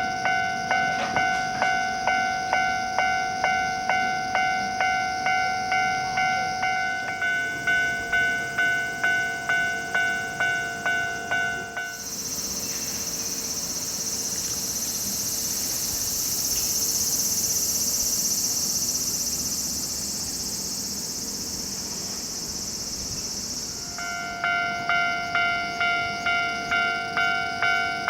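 Japanese level-crossing alarm ringing its electronic two-tone ding about twice a second. About twelve seconds in, the dings give way to an electric commuter train passing over the crossing, a steady rumble and hiss of wheels on rail that swells and then fades. The crossing alarm dinging starts again near the end.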